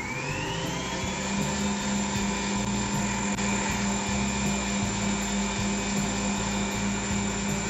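Stand mixer whipping egg whites and sugar into meringue with its whisk: the motor's whine rises as it comes up to speed over the first second or so, then runs steadily over a low hum.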